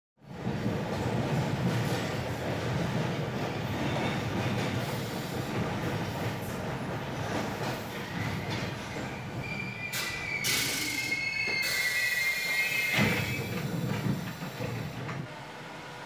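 Subway train running with a steady low rumble, its wheels squealing in high, wavering tones from about ten seconds in, with a clunk near thirteen seconds; the rumble dies down near the end.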